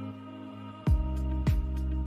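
Background music: soft, sustained notes, with a deep, regular beat coming in just under a second in.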